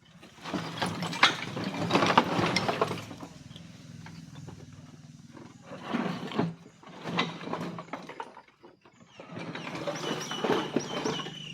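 Heavy broken masonry pieces being shifted and dragged, a rough scraping and grinding in several bouts with short pauses between. Birds chirp briefly near the end.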